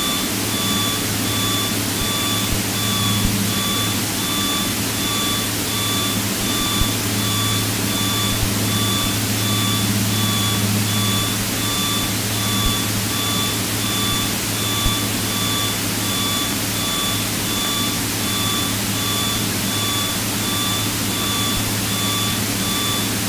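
Single piston engine of a Piper PA-32 droning steadily, heard inside the cockpit. An electronic beep pulses evenly over it.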